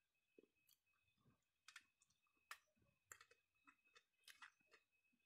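Near silence with faint, scattered wet clicks from eating rice and curry by hand, fingers working the rice on a steel plate, about one or two clicks a second.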